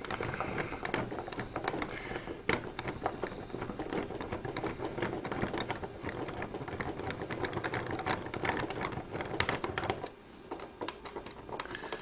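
Screwdriver backing a long screw out of a brass doorknob: a dense run of small clicks and scrapes of the tool working in the screw, which thins out and goes quieter about ten seconds in.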